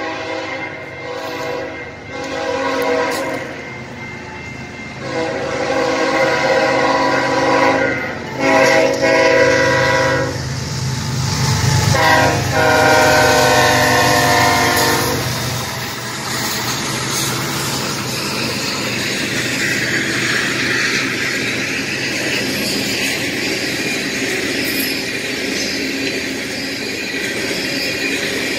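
Freight train passing: the diesel locomotive horn sounds a series of long blasts with short gaps as the BNSF locomotives go by, stopping about halfway through. After that comes the steady rumble and clatter of the hopper cars rolling past on the rails.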